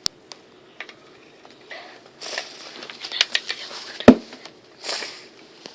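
Handling noise of a camera being moved: scattered clicks, short rustles and one loud knock about four seconds in.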